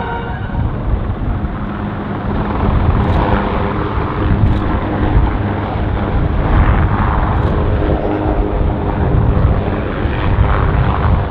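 Loud military aircraft engine noise: a steady, deep rumble that grows louder a couple of seconds in and swells several times, with a faint held hum in it.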